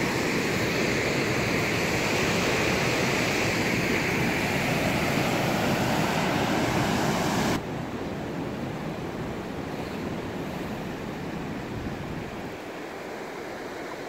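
Floodwater of a swollen river rushing steadily. About halfway through, the sound drops suddenly to a quieter, duller rush.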